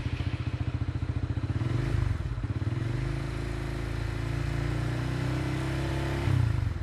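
Honda RS150's single-cylinder four-stroke engine, just started, running at idle through an aftermarket exhaust with a steady pulsing note. The level rises briefly twice, about two seconds in and again near the end.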